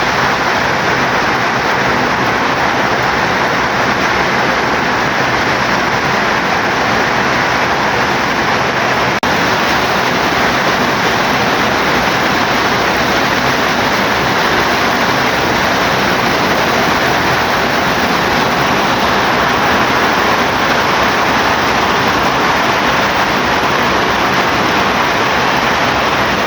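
Heavy rain falling steadily, an even hiss with no separate drops or gusts standing out.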